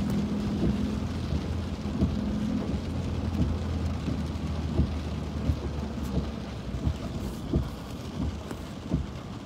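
Heavy rain pattering on a car's roof and windshield, heard from inside the moving car as a steady hiss with many small sharp ticks, over the low steady hum of the car driving on the wet road, which eases off about eight seconds in.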